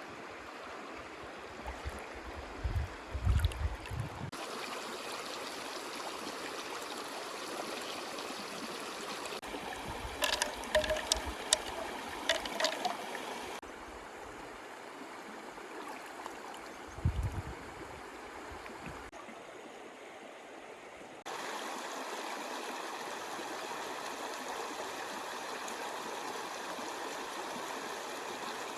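Stream water running steadily, with a cluster of sharp knocks and clicks in the middle and a couple of low thumps.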